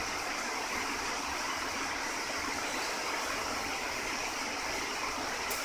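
Steady, even hiss of workshop noise with no distinct stitching rhythm, and two short high clicks near the end.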